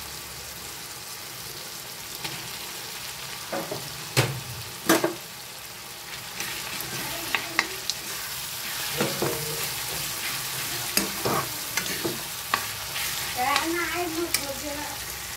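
Paneer pieces and onion-tomato masala sizzling in hot oil in a kadai, with a metal ladle clicking and scraping against the pan as it stirs. Two sharp knocks come about four and five seconds in, and the clicks and scrapes grow busier through the second half.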